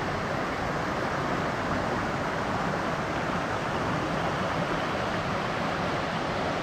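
Stream running over rocks: a steady, even rush of water.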